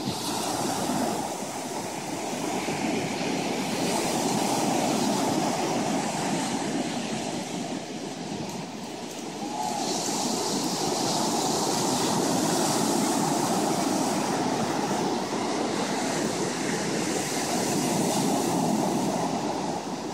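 Ocean surf: small waves breaking and washing up a sandy beach, a continuous rush that swells and eases every several seconds.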